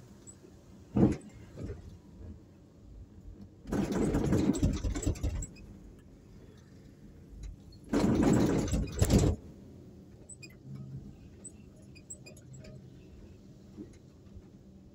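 Street traffic heard from a moving vehicle: a low steady rumble with a sharp knock about a second in, then two loud noisy rushes, each about a second and a half, that start and stop abruptly.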